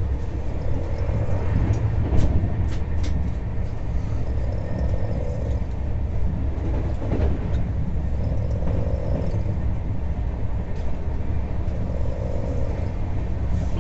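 Sampoorna Kranti Special passenger coach running at speed, heard from inside: a steady low rumble of wheels on the rails, with a few sharp clicks about two to three seconds in.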